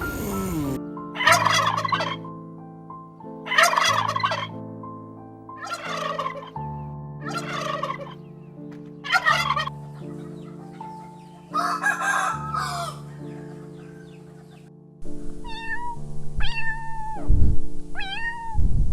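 A large bird calling again and again, about six rattling calls spread a couple of seconds apart, over background piano music. Near the end come three shorter, clearer calls that rise and fall in pitch.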